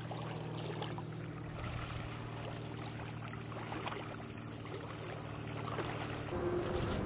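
Rubber boots sloshing and splashing through shallow floodwater as people wade, with many small splashes over a steady low hum.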